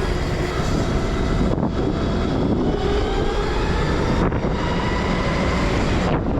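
Electric pit bike motor whining while riding, its pitch climbing a couple of times as the bike speeds up, with wind buffeting the microphone.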